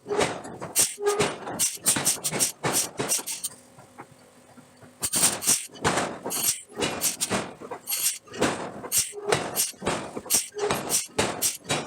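Rapid, irregular forging blows on hot steel, several strikes a second, with a pause of about a second and a half partway through.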